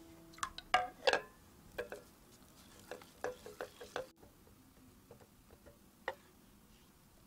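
Silicone-coated whisk stirring a runny sugar mixture in a glass bowl, knocking and scraping against the glass in irregular taps, loudest in the first second or so and thinning to a few faint taps after about four seconds.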